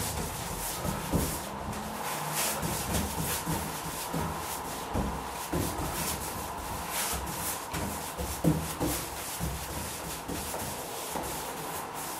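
Paintbrush stroked back and forth over a wooden door, the bristles rubbing on the wood in a quick, irregular series of strokes, a few each second.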